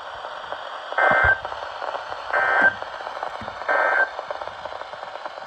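Emergency Alert System end-of-message data bursts: three short buzzy digital squawks about 1.4 seconds apart, over steady radio hiss, marking the end of the warning broadcast.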